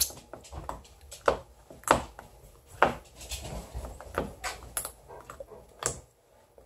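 Wet mouth clicks and smacks of a child sucking and licking a lollipop, a handful of short sharp ones spread out, the loudest about three seconds in.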